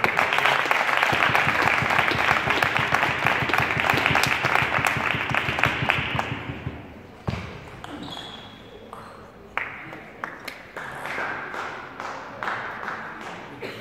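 Spectators clapping and cheering after a table tennis point, a dense clatter that fades out about six or seven seconds in. It is followed by a few sharp ping-pong ball taps and scattered voices in the hall.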